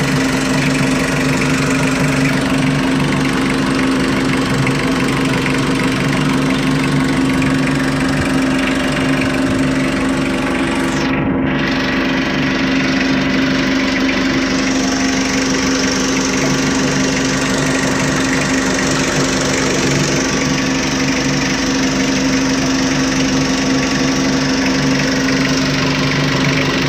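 Mitsubishi L300 diesel engine idling steadily at an even pitch.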